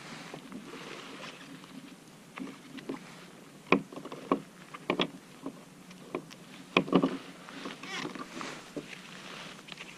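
Scattered sharp knocks and taps of handling on a plastic sit-on-top kayak while small Japanese anchovies are taken off a sabiki rig with gloved hands, over a steady low wash of water.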